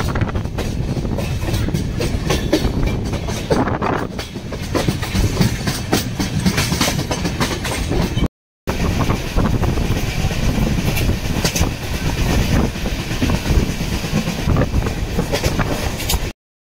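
Long-distance passenger train running on the track: a steady rumble with the clickety-clack of wheels over rail joints. The sound drops out for a split second about halfway and again near the end.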